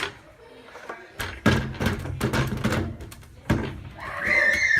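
Sheet-metal top panel of a Whirlpool Cabrio washing machine being handled and seated back into place: several knocks and clunks, the loudest about a second and a half in.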